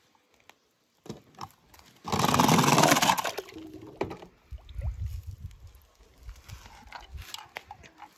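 A small die-cast toy car splashing into a tank of water, one loud splash about two seconds in that lasts around a second, followed by scattered faint knocks and rustles.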